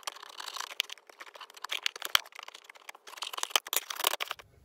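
Scissor blade slicing through the clear tape seals on a cardboard LEGO box, a crackly run of small clicks and scratches.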